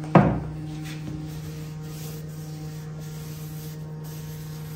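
Steady low electrical-sounding hum with even overtones, with one sharp knock just after the start and faint rubbing of a rag.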